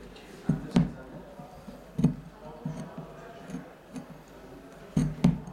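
Sharp clicks and light knocks from a small knife working the wool pile and knots of a hand-knotted Persian rug under repair. They come at irregular intervals, twice in quick pairs.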